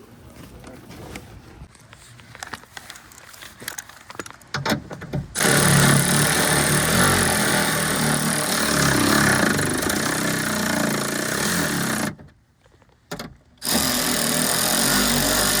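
Key-cutting machine cutting a key to the lock's code: a few light handling clicks, then the cutter motor runs loud for several seconds, stops abruptly about twelve seconds in, and starts again shortly after.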